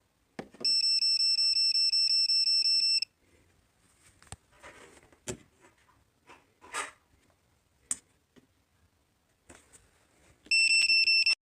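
An electronic alarm beeping rapidly in a single high tone for about two seconds, then a few clicks and handling noises, then a second short burst of the same fast beeping near the end.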